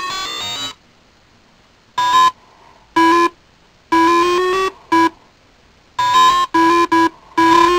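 A synthesizer tone from an Arduino food-sensor instrument, switched on and off in about eight short, irregular bursts at the same pitch each time. The gaps between the bursts are nearly silent.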